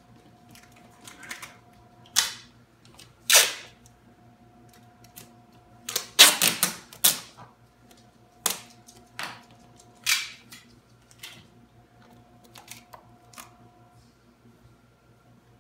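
Strips of tape being pulled off the roll and torn, then pressed along the countertop edge to hold the glued edge banding: a string of short ripping sounds, the longest and loudest cluster about six seconds in.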